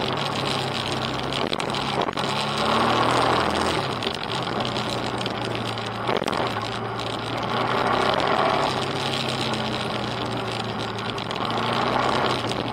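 Off-road motorcycle engine running at a steady pace along a gravel track. A rushing noise swells and fades about three times over it.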